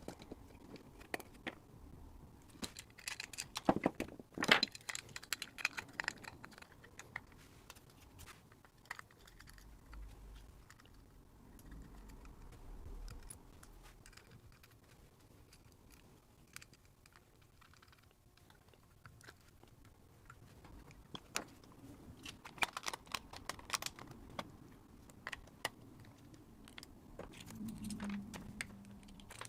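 Scattered clicks and light metallic clatter of a Boss FZ-1W fuzz pedal being put back together by hand: screws, circuit board and metal enclosure being handled and fitted. The clicking comes in busier clusters a few seconds in and again past the twenty-second mark, with a brief low hum near the end.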